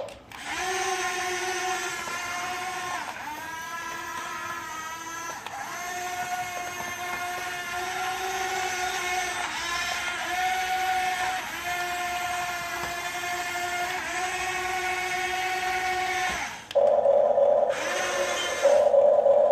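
Huina 1550 RC excavator's small electric motors whining as its functions are worked, stopping and restarting every second or two with a brief rise in pitch at each start. Near the end it changes to a louder, rougher buzz, broken once by a short pause.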